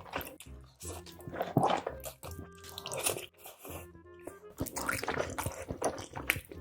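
Close-miked noodle eating: chewing and mouth sounds in repeated bursts over background music with steady notes.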